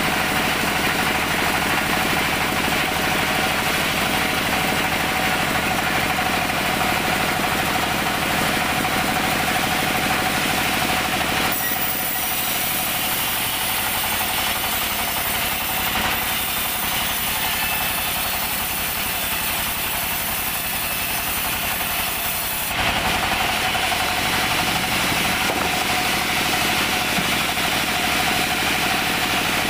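Band sawmill running steadily while its blade saws a teak log, a constant machine hum with a whining tone. About eleven seconds in the low hum drops away and a brighter high hiss takes over, switching back abruptly about twenty-three seconds in.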